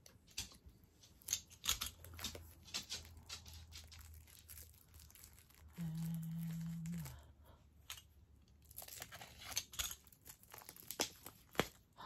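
Fingers picking at and crinkling the plastic shrink-wrap on a boxed photo card set, a scatter of small crackles and clicks. About six seconds in, a brief low steady hum lasts about a second.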